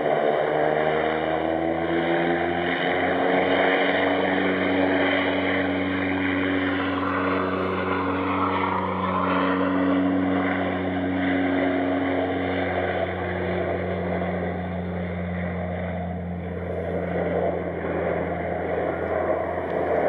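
Saab 340's twin turboprop engines at takeoff power during the takeoff roll, a steady propeller drone whose pitch climbs over the first couple of seconds as the engines spool up. The pitch sweeps downward as the aircraft passes about eight seconds in.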